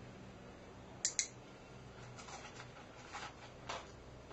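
A training clicker snapping about a second in, a sharp double click of press and release that marks the instant the cat does the cued behaviour. A few fainter clicks and rustles follow.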